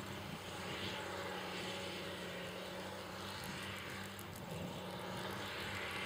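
Grapple skidder's diesel engine running steadily at a distance, an even low drone with a constant hum.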